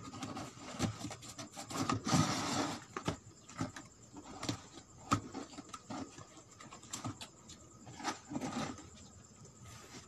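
Cardboard and paper being handled: rustling, scraping and light taps as a paper mock-up power supply is set into a cardboard box, with a louder stretch of rustling about two seconds in.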